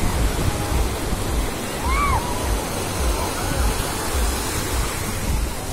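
Surf breaking and washing over the shallows in a steady rush, with a couple of brief distant shouts from people on the beach.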